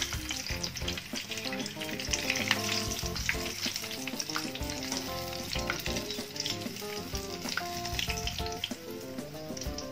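Short mackerel frying in hot oil in a non-stick pan: steady sizzling with frequent small crackles and spatters, and now and then a wooden spatula nudging the fish against the pan.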